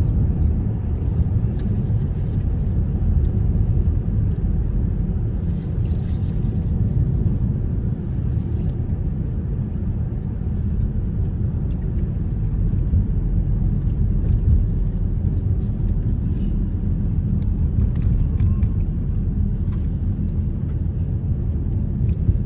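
Steady rumble of tyres and engine heard from inside the cabin of a moving car.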